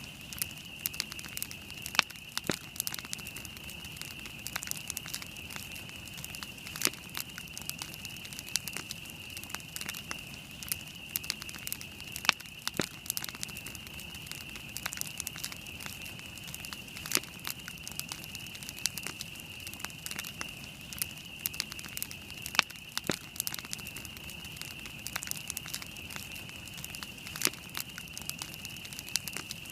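Wood campfire burning and crackling, with irregular sharp pops and snaps, a few much louder than the rest, over a steady high hiss.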